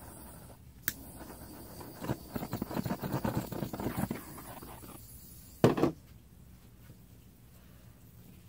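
Rustling and crinkling of hands handling paper and a plastic drop cloth on a tabletop: a run of quick, irregular crackles from about two to four and a half seconds in, then one short, louder rustle a little past halfway.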